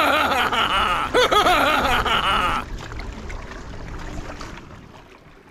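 A man laughing in a run of short rising-and-falling chuckles over a steady hiss, both stopping about two and a half seconds in, after which only a faint, even background noise is left.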